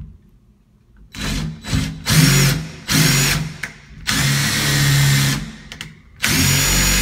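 A DeWalt drill driving a screw-extractor bit in reverse against a stripped screw. It runs in several short trigger bursts, then a longer run about six seconds in, and its whine rises each time it spins up. The extractor is not gripping: the screw isn't coming out.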